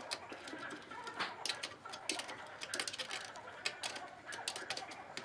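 Irregular light metallic clicks and taps, several a second, as a spanner is fitted onto a nut on a bolt and turned to tighten it.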